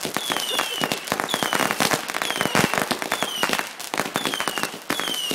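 Fireworks going off in a rapid, unbroken run of sharp pops and crackles, with short high whistles falling in pitch that recur every half second or so.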